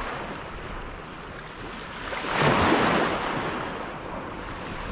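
Ocean surf breaking and washing up the beach, one wave swelling up about two seconds in and then fading.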